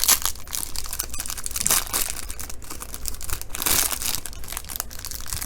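Wrapper of a pack of baseball trading cards being torn open and crinkled in the hands: irregular crackling rustle with louder crinkles right at the start, near two seconds and near four seconds.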